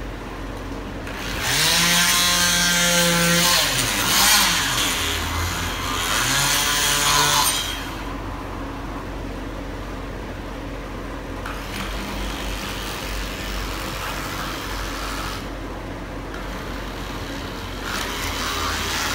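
Ridgid power tool with a scraper attachment running as it scrapes enamel off wood. It is loud for the first several seconds, its pitch sliding down and then up, and then buzzes more quietly.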